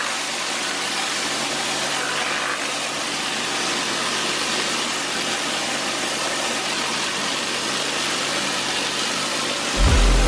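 Rotary surface cleaner spraying hot pressurised water onto patio slabs: a steady hiss with the pressure washer's engine running underneath. Near the end, music with a heavy bass note comes in.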